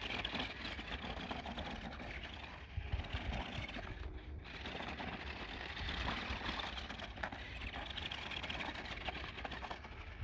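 Toy RC stunt car running over gravel: its small electric motors buzzing and its knobbly tyres crunching and scattering the stones, with a couple of brief dips in the sound.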